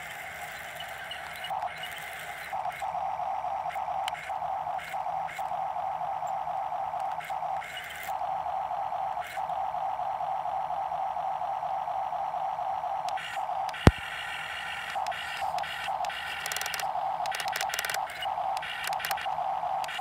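Small electric motors and plastic gearboxes of a Huina remote-control toy excavator whining as it swings and moves its boom and bucket, starting and stopping with each control input. A single sharp click about two-thirds of the way in.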